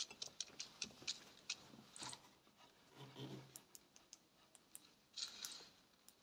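Faint, irregular clicking of a computer mouse, several clicks a second.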